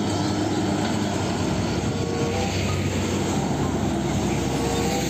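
Diesel tanker trucks driving past on a road: a steady engine drone mixed with tyre and traffic noise.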